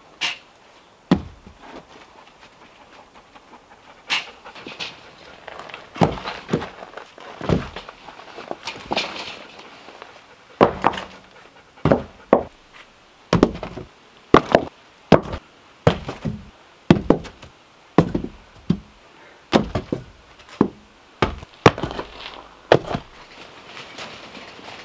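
Sawn ash log rounds knocking against each other and the cart as they are handled and set down: a long string of irregular hard wooden clunks, one or two a second.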